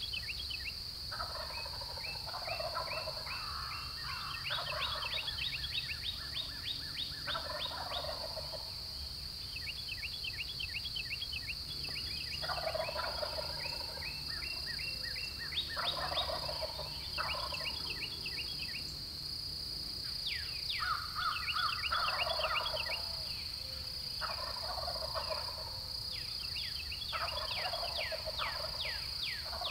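Several Osceola wild turkey gobblers gobbling again and again, a gobble every few seconds, often overlapping one another. A steady high-pitched whine runs underneath.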